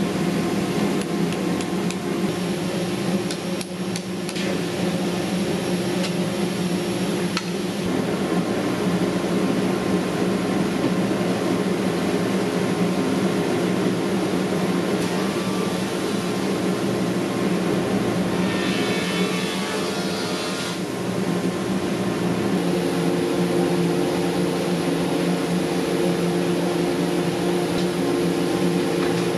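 Woodshop thickness planer and its dust collector running with a steady hum. A few sharp metallic taps come in the first several seconds, from a hammer working old square-cut nails out of reclaimed beams. A rougher hissing stretch lasts about two seconds past the middle.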